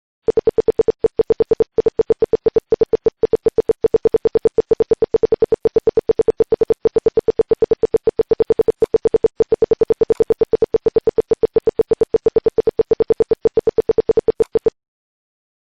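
Homemade security alarm's buzzer beeping rapidly, about five to six short beeps a second on one steady low tone, then cutting off suddenly near the end: the alarm has been set off.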